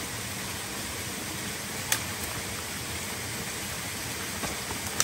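Steady rushing of a fast-flowing forest stream running high with water, with one sharp click about two seconds in.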